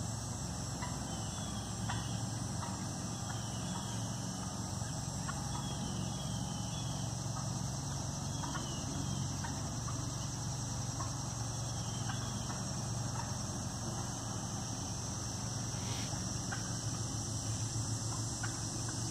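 Wild turkeys clucking now and then from their roost in the trees: short scattered clucks, with a few higher falling chirps. Under them runs a steady high hiss and a low hum.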